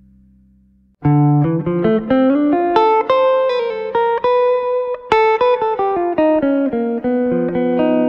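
Background music: a faint held chord fades out, and about a second in a plucked guitar starts a melody of single picked notes that climb and fall.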